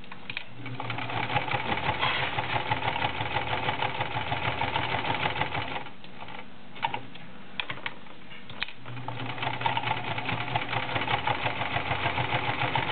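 Vintage 1980s Kenmore Model 1211 sewing machine stitching through five layers of denim, its motor running with a fast, even needle clatter. It stops for about three seconds midway, with a few clicks, then runs again.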